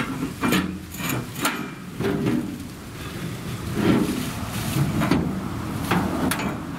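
Irregular knocks and clatter as two wheelbarrows are hung and shifted on the rear rail of a goods autorickshaw, about nine knocks over a steady low noise.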